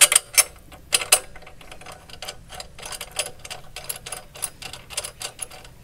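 Metal bracket and bolt clicking and tapping against a motorcycle's leg-guard tube as they are set in place by hand. A few sharp clicks come in the first second or so, then a run of lighter, irregular ticks.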